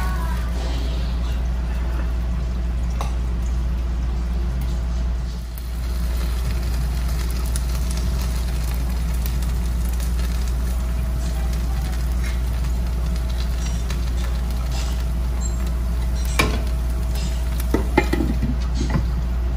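Banh xeo crepe frying in a pan, with faint sizzling under a steady low hum. Near the end a metal spatula clicks and scrapes against the pan a few times as it lifts the crepe's edge.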